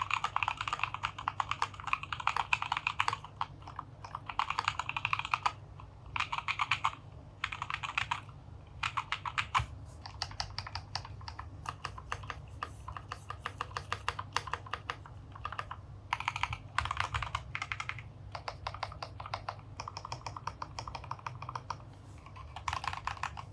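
Typing on a DZ60 mechanical keyboard in a wooden case with Gateron Milky Black linear switches and XDA keycaps, foam-filled and tape-modded. Quick runs of keystrokes with short pauses between them.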